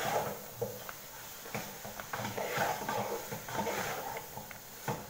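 A fork stirring and tossing instant noodles in a black plastic bowl: irregular light clicks and scrapes of the fork against the bowl, with soft noisy rustling of the noodles.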